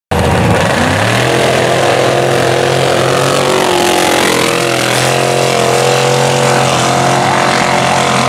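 Mega mud truck engines running hard as the trucks race down a dirt track: a loud, steady engine note that dips and rises slightly in pitch. It cuts in suddenly right at the start.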